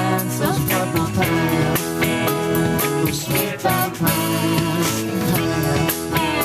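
Live rock band playing a song: guitars over a drum kit and keyboard, with a steady beat of drum hits.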